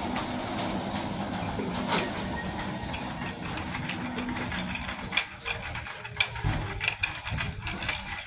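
Shopping cart rolling across a hard store floor: a steady rattle and rumble, with several sharper clacks in the second half.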